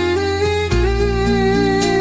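Music: a song with instruments, a held melody line over sustained bass notes that change about two-thirds of a second in.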